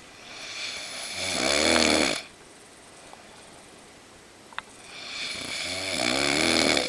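A man snoring loudly in his sleep: two long snores a few seconds apart, each swelling over about two seconds into a low buzz and then cutting off.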